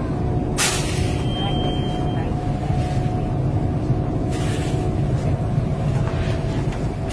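Bus engine running steadily, heard from inside the passenger cabin as a constant low rumble with a thin steady whine over it. Short bursts of hiss come about half a second in and again about four seconds in.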